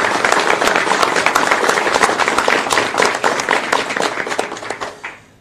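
Crowd applauding, a dense run of hand claps that dies away about five seconds in.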